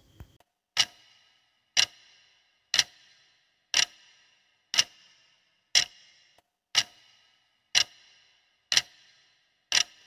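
Clock-tick sound effect, one sharp tick a second, about ten in all, counting down a quiz answer timer.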